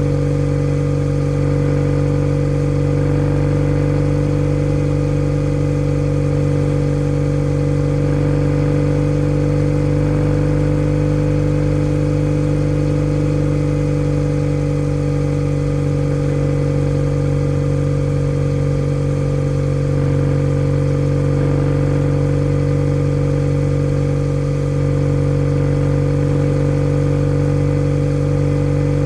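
Kawasaki W650 parallel-twin engine running through a POSH W1 aftermarket full exhaust, holding a steady, unchanging pitch throughout.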